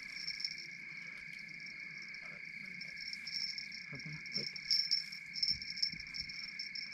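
Night chorus of crickets: a steady high trilling with a pulsing higher chirping over it. Faint low voices come through about four seconds in.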